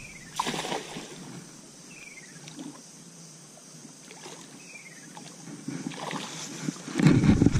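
A thrown cast net slaps down on shallow water about half a second in. Then a calm stretch where a bird repeats a short falling whistle every couple of seconds, and near the end a loud low rumbling noise.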